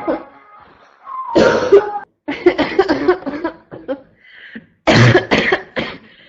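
A person with a harsh, barking cough coughing in fits. There is one cough about a second in, then a quick run of several short coughs, then three loud coughs in a row near the end.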